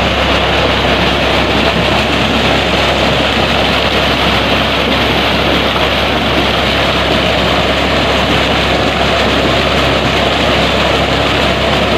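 A tube well's outlet pipe gushing a thick stream of muddy water into a concrete tank, splashing steadily, with an engine running underneath to drive the pump.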